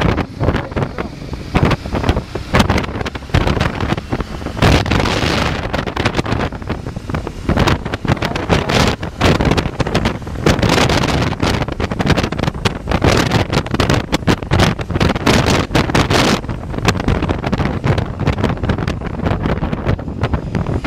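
Wind buffeting the microphone of a camera on a moving motorcycle, with gusts coming in uneven bursts over the motorcycle's engine running underneath.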